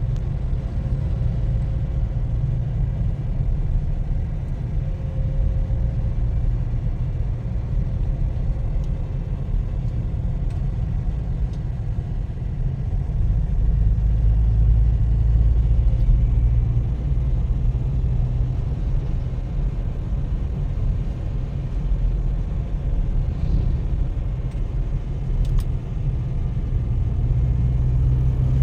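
Steady low rumble of a vehicle on the move, engine and road noise heard from on board, with no marked changes in speed.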